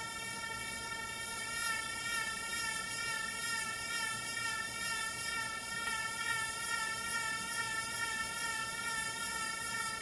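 A steady electronic buzzing tone with many overtones, played from a small handheld device. From about two seconds in, its loudness and pitch waver slightly as the device is moved around: the Doppler effect.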